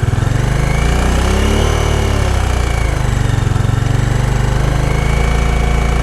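Bajaj Dominar 400's single-cylinder engine running, revved once about a second in and falling back to idle, with a 'pherr' buzzing vibration that comes on with the throttle. The owner thinks it comes from outside the engine and could be a loose silencer.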